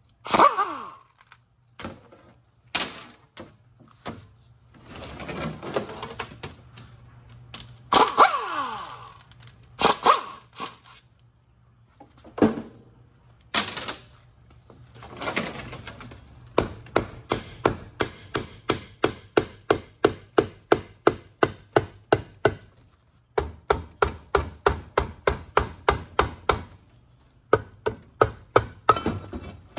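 Mallet striking the rusty aluminium tail housing of a Subaru 4EAT automatic transmission to break it free of its corroded dowel pins. Scattered separate knocks and longer rattling bursts give way, about halfway through, to fast, even blows, about three a second, with a brief pause.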